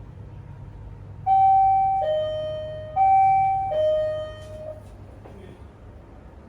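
Hotel room doorbell chiming a two-note ding-dong, a higher note then a lower one, rung twice in quick succession.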